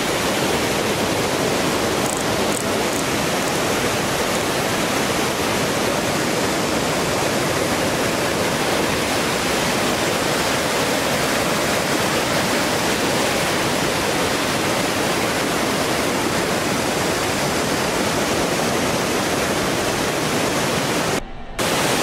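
Steady rush of a shallow waterfall with a strong current, an even wash of water noise that drops out for a moment near the end.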